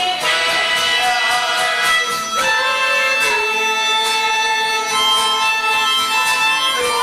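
Music: long held melody notes that step to a new pitch every second or two, over a steady ticking beat.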